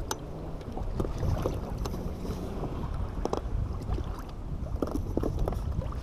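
Wind rumbling on the microphone over water lapping against an inflatable boat's hull, with a scattering of small sharp clicks and taps.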